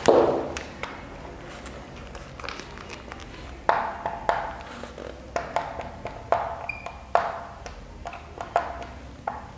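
Marker writing on a whiteboard: a run of light taps and strokes starting about four seconds in, each with a brief ring from the board.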